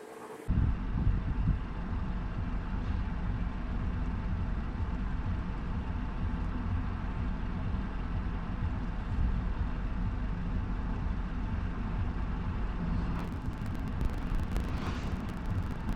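A car engine running steadily, a low rumble that starts abruptly about half a second in and holds at an even level.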